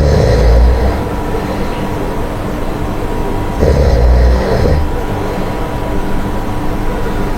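A person snoring: two loud, rumbling snores about three and a half seconds apart, each lasting about a second.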